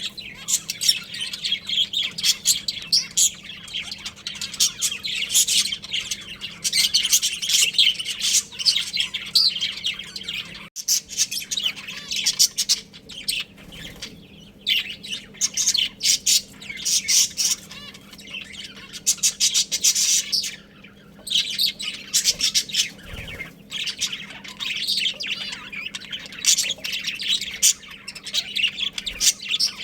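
A group of budgerigars chattering and chirping, dense rapid high-pitched calls with brief pauses, over a faint steady low hum.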